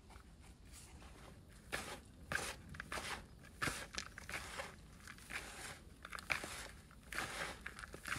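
Irregular crunching and rustling noises, a few a second, starting about two seconds in.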